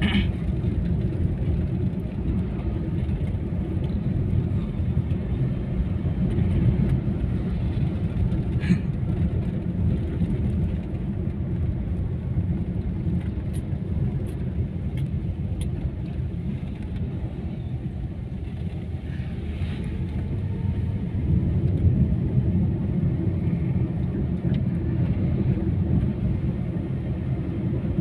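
Steady low rumble of engine and tyres inside the cabin of a moving Daihatsu Ayla, a small car with a 1.2-litre DOHC inline-four and four-speed automatic. A few faint ticks come through in the middle.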